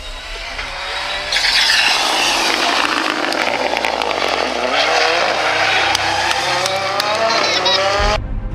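Ford Fiesta rally car at full attack through a tarmac hairpin: the engine note drops off as it brakes in, then climbs again and again as it accelerates out through the gears, with a few sharp cracks late on. The sound cuts off abruptly near the end.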